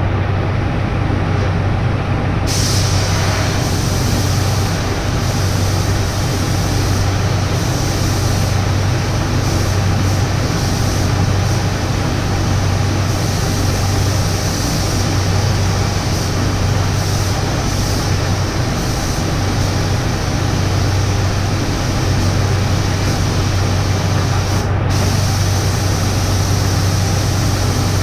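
Spray-painting equipment running: a steady low motor hum under an even hiss of air. The hiss turns brighter about two and a half seconds in.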